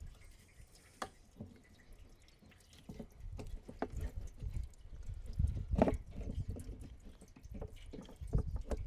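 Irregular light clicks and knocks of a fuel level sender being worked out of a mini excavator's fuel tank, with a couple of sharper knocks near the end, over a low rumble of wind on the microphone.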